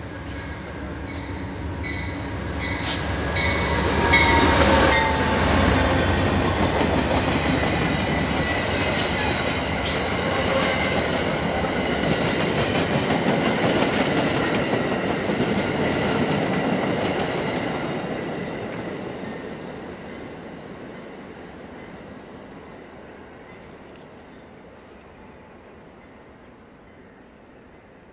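Amtrak passenger train led by a GE P42 diesel locomotive passing close by. The locomotive and its rolling wheels grow to their loudest about four to six seconds in. Then the passenger cars roll past on the rails, and the sound fades away steadily over the last ten seconds as the train moves off.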